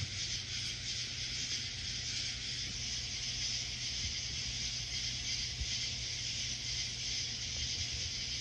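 Steady hiss with a low hum underneath, with no distinct events.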